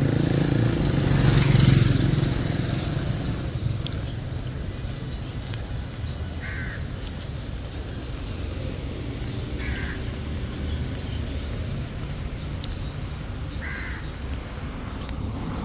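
Steady road traffic rumble, loudest in the first two seconds as a vehicle passes, with a crow cawing three times, a few seconds apart.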